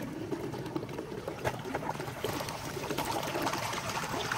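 Water running and trickling, with many small irregular splashes.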